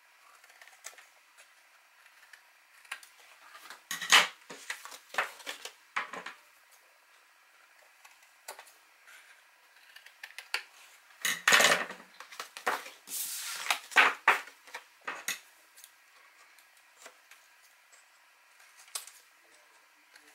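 Scissors snipping the corners off cardstock at an angle: scattered short, sharp cuts at irregular intervals, most of them bunched in the middle.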